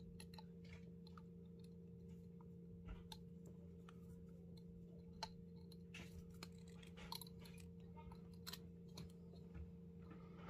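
Near silence: faint scattered clicks and taps of hands handling a small glass jar, copper wire and pliers, over a steady low hum.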